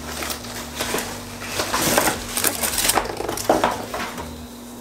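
Ninja Foodi NeverStick pans being lifted out of their cardboard shipping box: packaging rustling and crinkling, with a string of sharp clinks and knocks of the pans, busiest in the middle.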